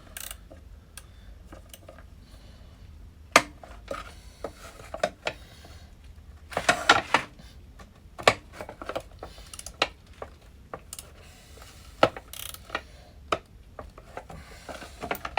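Hand tools and a metal part being handled while working loose stuck bolts: scattered metallic clinks and knocks, with a denser stretch of clatter about halfway through.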